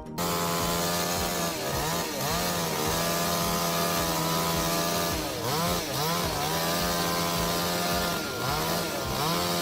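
Chainsaw running at high revs while cutting wood. The engine speed sags briefly and picks back up three times, about two, six and nine seconds in.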